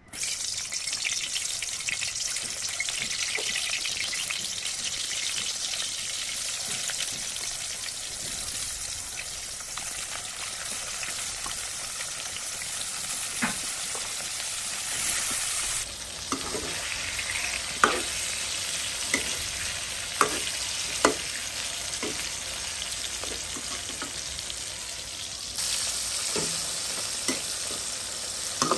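Potol (pointed gourd) slices sizzling in hot oil in a metal kadai, the sizzle starting suddenly as they go into the pan. From about halfway through, a metal slotted spoon stirs them, with sharp clinks against the pan.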